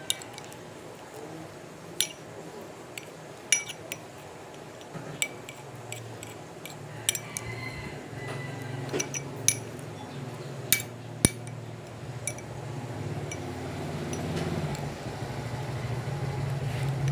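Spoon stirring thick slime in a bowl, clinking sharply against the bowl's side at irregular moments, a dozen or so times, over a low hum that grows louder near the end.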